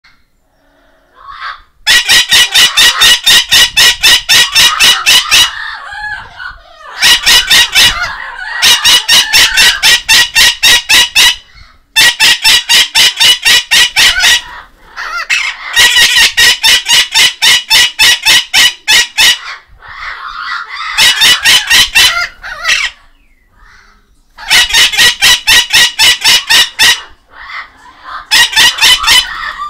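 White-fronted amazon parrot calling loudly in runs of rapid repeated squawks, about five a second, each run lasting a few seconds, with softer chatter in the gaps between runs.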